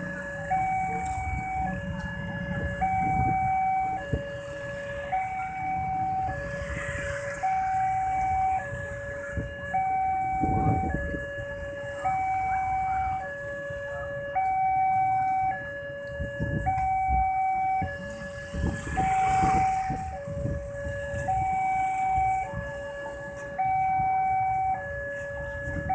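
Railway level-crossing warning alarm sounding a steady two-tone ding-dong, a higher and a lower note alternating evenly, each held about two-thirds of a second, signalling that the crossing is closed for an approaching train. Motorcycle engines run underneath, louder now and then.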